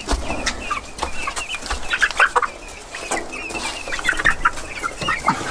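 Chickens clucking and cheeping in a run of short, high, wavering calls, with sharp clicks and knocks mixed in.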